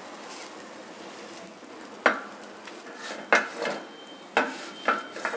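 Metal spatula knocking and scraping against a flat tawa: about six sharp strokes in the second half, a few with a brief metallic ring, over the faint steady sizzle of the bread omelette frying.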